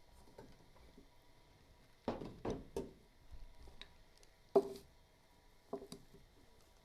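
Several knocks and clunks of metal gear-train parts being handled and set down while the motor is taken apart: a quick cluster about two seconds in, the loudest single knock about halfway through, and a lighter one shortly after.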